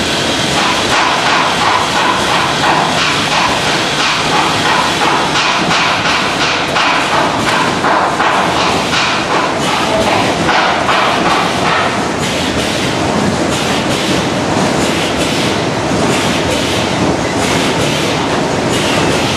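Food packaging line machinery running: a loud, steady mechanical clatter made up of many rapid clicks and knocks, with the packing machine and conveyor working continuously.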